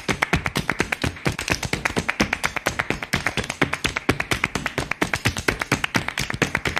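Flamenco background music made up mostly of rapid, dense percussive tapping, many sharp taps a second in a steady driving rhythm.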